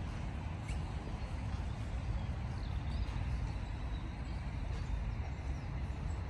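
Steady low rumble of distant city traffic, with a few faint bird chirps above it.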